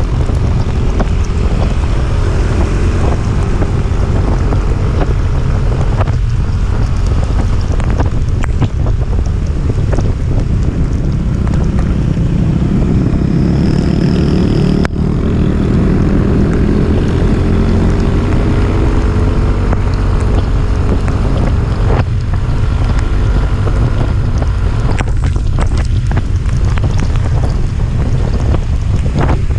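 Heavy wind buffeting the microphone over a motorcycle engine running on a climb. The engine's pitch rises and falls through the middle as the throttle changes.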